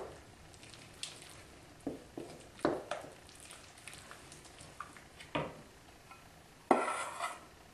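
Wooden spoon stirring a thick, sticky bread dough in a mixing bowl, with irregular knocks and scrapes as flour is worked in. Near the end a metal measuring cup scrapes and scoops through flour in a stainless steel bowl, the loudest sound.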